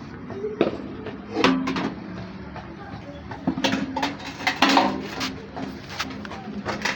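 A run of irregular knocks and clatters, about seven sharp strokes, over a steady low hum.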